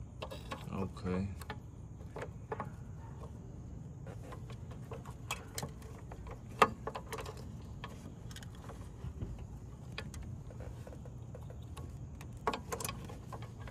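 Small scattered clicks and rattles of a 1998 Nissan Altima's headlight bulb socket and wiring plug being worked by hand behind the headlight housing, with one sharper click about six and a half seconds in, over a faint steady low hum.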